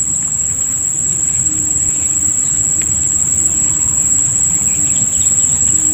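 Insects in swamp vegetation making a steady, unbroken high-pitched drone. A low, even rumble runs underneath it.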